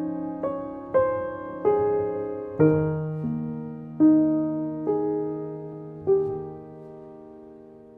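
Slow, gentle solo piano music: single notes and chords struck about once a second, each fading after it is struck, with the last chord near the end left to ring and die away.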